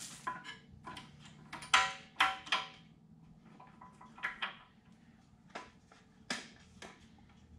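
Metal clinks and clanks from the hardware of a transmission jack as a manual transmission is secured on it: sharp knocks with a short metallic ring, the loudest cluster about two seconds in, then scattered lighter clinks.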